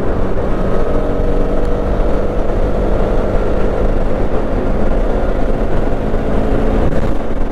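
Motorcycle engine running at a steady cruising speed, its pitch holding even, heard from the rider's seat with wind rumble on the microphone.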